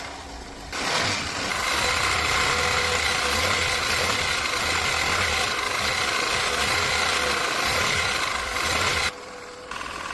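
Car engine running steadily, then cutting off abruptly near the end.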